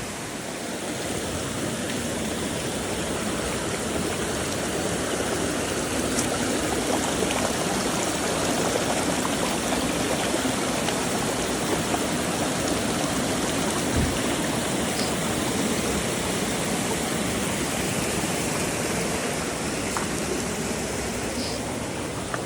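Shallow creek spilling over rocks in small falls: a steady rush of running water.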